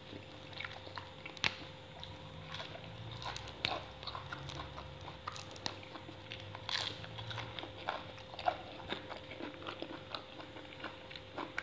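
A person chewing raw shrimp and fresh leafy greens, giving many short, irregular crunches and bites. A faint steady hum runs underneath.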